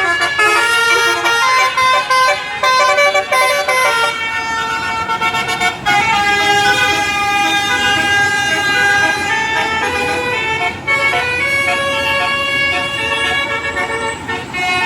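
Bus telolet horn, a multi-trumpet musical horn, playing a melody of changing notes: quick short notes at first, then longer held notes from about six seconds in.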